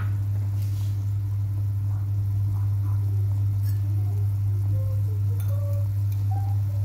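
A steady low hum, with faint voices in the background.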